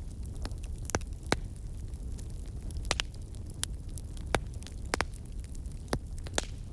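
Wood campfire crackling: irregular sharp pops and snaps, about ten of them, a few louder than the rest, over a low steady rumble.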